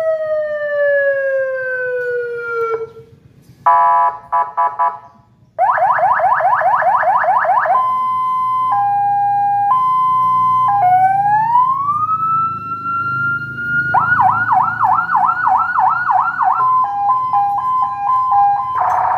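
Newly installed electronic siren on a fire truck, loudly run through its tones: a falling wail, a few short horn-like blasts, a fast yelp, a two-tone hi-lo, a rising wail that holds its pitch, then another fast yelp and another hi-lo.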